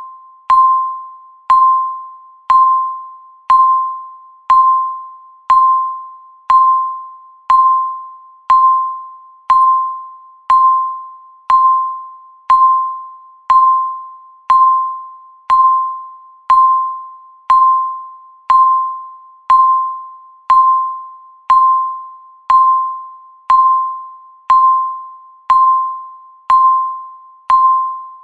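Countdown timer beeping once every second: a single mid-pitched chime-like tone that starts sharply and fades away before the next, in a perfectly even rhythm.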